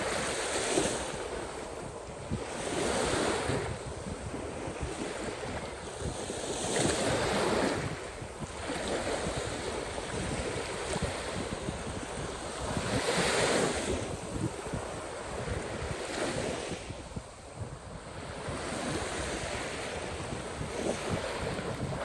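Caspian Sea waves washing onto the shore, swelling and falling back every few seconds, with wind buffeting the microphone.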